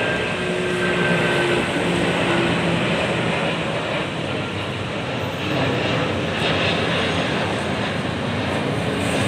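Airliner's engines at take-off power: a loud, steady rush of engine noise with a low hum underneath.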